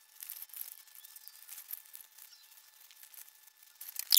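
Faint, scattered ticks and rustles of nylon webbing and plastic buckles being handled as an old pack is unstrapped from its frame, with a sharper, louder click near the end.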